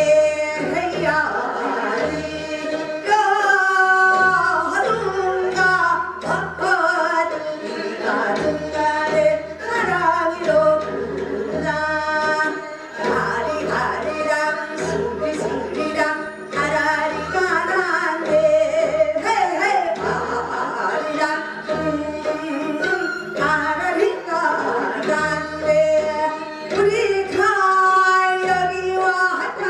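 A woman singing a Korean folk song (minyo) in a pansori-trained voice into a handheld microphone, the melody wavering and sliding between held notes. Under it runs an accompaniment with a low, regularly pulsing beat.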